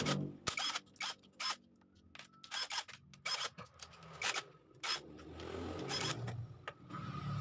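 Bolts of a Honda Supra 125's magneto cover being undone with a cordless drill and socket: a string of sharp clicks and metallic taps as the socket and bolts are handled, with the drill's motor running briefly about five seconds in and again near the end.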